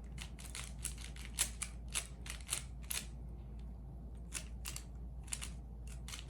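Plastic 3x3 Rubik's cube being turned by hand: irregular clicks as its layers snap round, in quick bunches with a pause of about a second midway.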